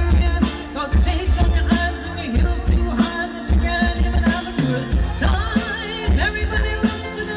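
A woman singing a pop song live into a microphone through a PA, over amplified keyboard accompaniment with a pulsing bass.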